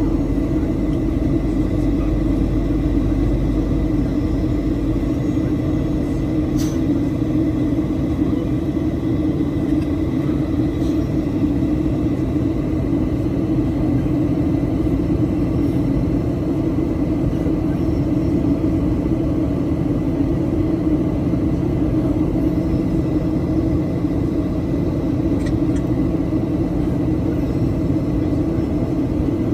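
Steady drone of jet engines and airflow inside the cabin of a Boeing 737-800 airliner, holding level without rising or falling, as in flight.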